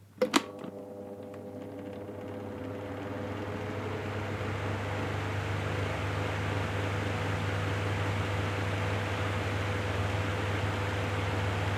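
Electric air fan starting up: two sharp clicks, then a whirring rush of air that builds over the first few seconds and settles into a steady run with a low motor hum and a faint steady tone.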